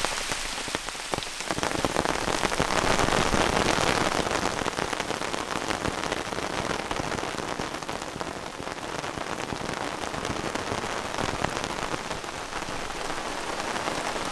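Rain falling hard in a short, intense burst, a dense patter of drops that grows louder about two seconds in and then holds steady.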